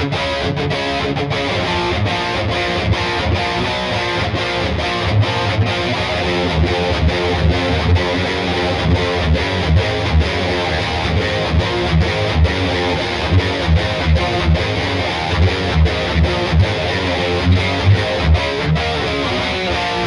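Sterling by Music Man SUB Series AX3 electric guitar with two humbuckers, played through a distorted tone: picked riffs of chords and single notes. Regular, louder accented low notes come in from about five seconds in.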